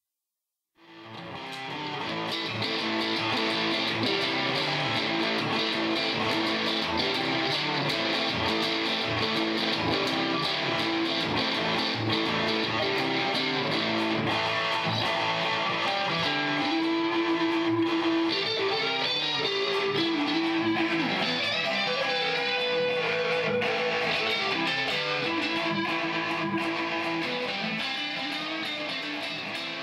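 Electric guitars played together through amplifiers, with long held single notes over the rhythm playing. The music starts just under a second in and fades a little near the end.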